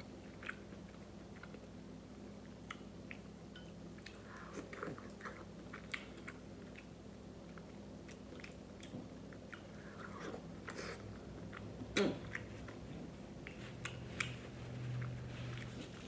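Close-up sounds of a person eating: soft wet chewing and small mouth clicks, starting with a bite into a peeled boiled egg. A sharper click comes about twelve seconds in, and a short low hum near the end.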